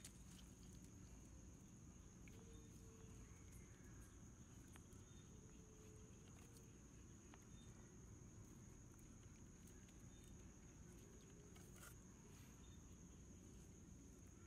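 Near silence with a faint, steady, high-pitched insect trill throughout, and a few faint clicks.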